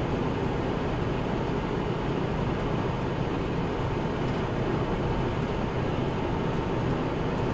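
Steady road noise of a vehicle cruising at highway speed: a constant drone of tyres and engine with a low hum underneath.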